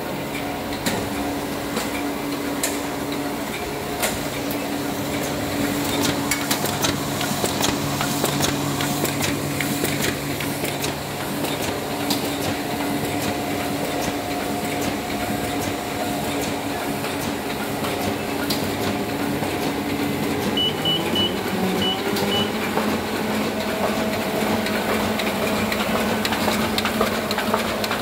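Ryobi 3302M two-colour sheetfed offset press running: a steady mechanical hum with a constant fast clicking from the sheet feed and cylinders. About two-thirds of the way through, the hum rises in pitch as the press speeds up, and a few short high beeps sound.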